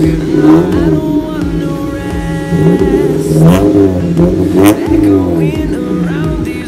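Electronic pop background music with a melodic line that bends and glides in pitch over a steady bass.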